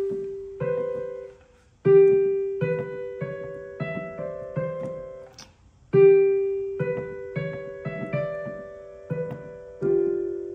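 Digital piano played with one hand: a simple melody of single notes. A phrase that opens on a long held note and climbs in shorter notes is played over again several times.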